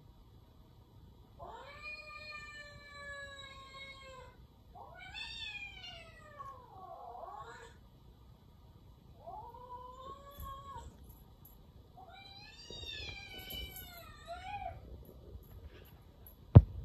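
A cat meowing: four long, drawn-out meows a second or two apart, some bending down and up in pitch. Just before the end a single sharp click, louder than the meows.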